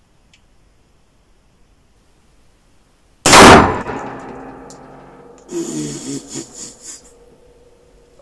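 A single loud .300 Win Mag rifle shot from a Walther WA 2000 semi-automatic sniper rifle, about three seconds in, followed by a long ringing decay in the indoor range.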